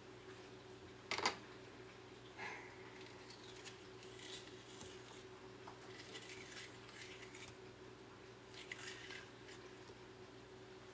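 Kitchen knife cutting a peeled cucumber into chunks over a plastic cutting board. A sharp tap comes about a second in, then scattered soft cuts and scrapes, with a steady faint hum underneath.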